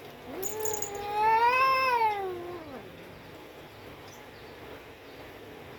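Cat yowling: one long drawn-out call that rises and then falls away, lasting about two and a half seconds. It is the caterwaul of cats squaring off in a rivalry over a female.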